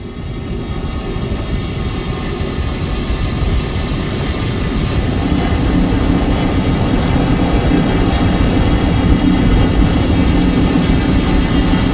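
Mecha King Ghidorah monster-movie sound effect: a dense, loud rumbling noise that grows gradually louder, with a steady low hum joining about five seconds in.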